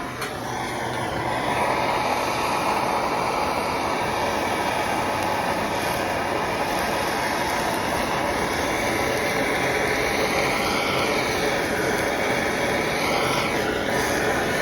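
Handheld MAP-gas torch burning with a steady roar as its flame sears a ribeye steak.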